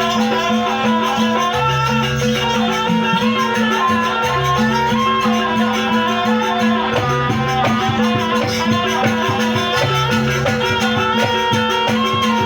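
Live jaranan dance accompaniment: traditional East Javanese ensemble music, a busy melody line over repeated percussion with a rattling, shaking layer.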